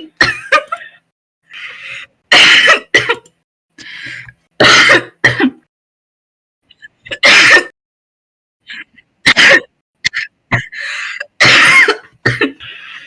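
A young woman clearing her throat hard and coughing again and again, five loud harsh hacks spaced about two to three seconds apart, with fainter throat clears between them. It is a deep, barking, chesty cough that the uploader puts down to smoking.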